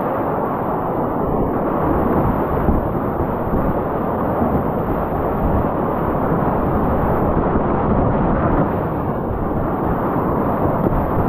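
Whitewater rapids rushing, a steady loud noise that is heaviest low down and never lets up.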